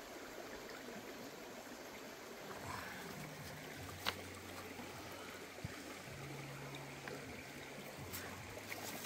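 Shallow stream running over rocks, a steady wash of water, with a sharp click about four seconds in.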